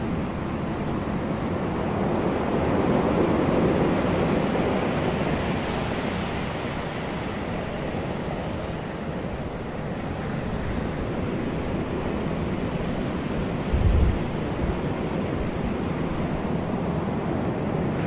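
Ocean surf on a sandy beach: waves breaking and washing up the shore in a steady rush, swelling as a wave breaks about two to four seconds in. A brief low thump about fourteen seconds in.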